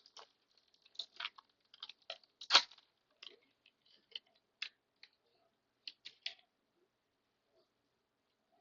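Handling a pack of baseball trading cards: a string of short crinkling and sliding scrapes from the wrapper and cards. The loudest comes about two and a half seconds in, and the sounds stop after about six and a half seconds.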